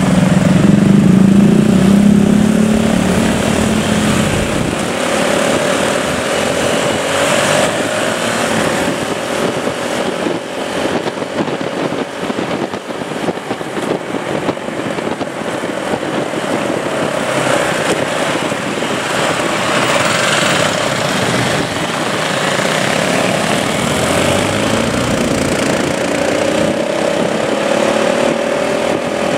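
Motorcycle engines. One runs loud and close as it pulls away in the first few seconds, then the engines run at road speed with wind noise on the microphone. The engine pitch rises as they speed up near the end.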